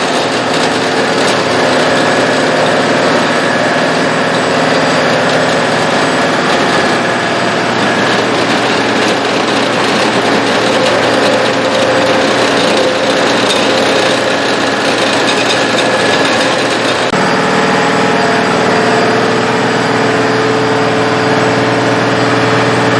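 Tractor engine running steadily under way, with the engine note changing about three-quarters of the way through.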